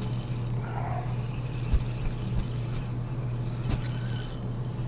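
A steady low hum with a few sharp knocks, twice standing out.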